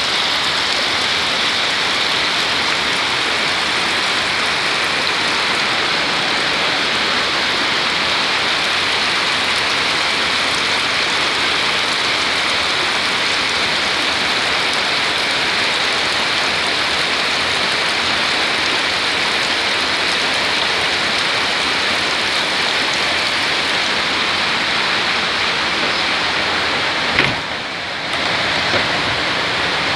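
Heavy rain falling steadily, an even hiss. Near the end there is a click and a brief drop in level.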